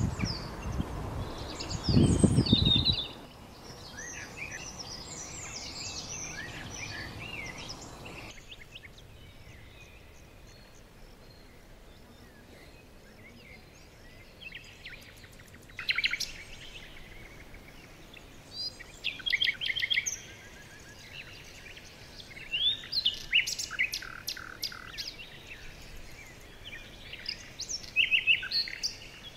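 Small birds chirping and trilling in short, high-pitched bouts, several rapid trills coming in bursts in the second half. In the first three seconds loud low rumbling bursts sit under the chirps, and the background hiss drops away suddenly about eight seconds in.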